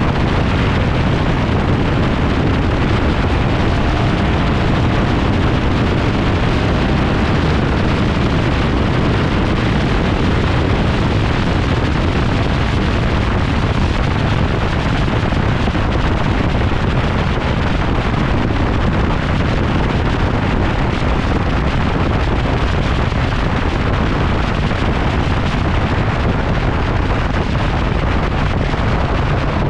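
Steady wind rush buffeting a camera mounted low on the side of a moving 1971 GMC Sierra pickup, with the truck's driving noise underneath. The sound holds even with no changes.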